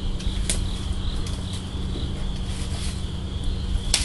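Insects chirring steadily over a low background rumble, with two sharp clicks: a light one about half a second in and a louder one near the end.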